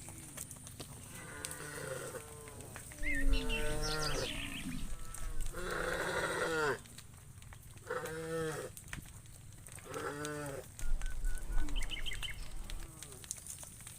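Cattle mooing: a series of calls, each about a second long, some overlapping, with the longest and loudest about six seconds in.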